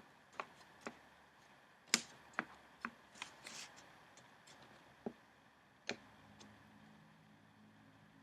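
Close-up hand taps and handling of paper and a tabletop: a string of sharp taps, the loudest about two seconds in, with a brief paper rustle a little later and two more taps near the middle.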